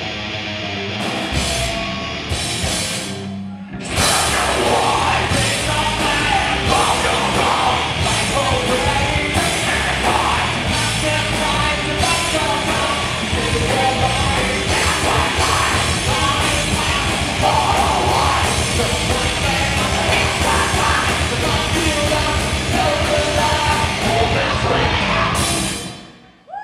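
Live rock band playing loud, distorted music with vocals: stop-start guitar hits for the first few seconds, then the full band with drums comes in about four seconds in and plays on until the song stops abruptly near the end.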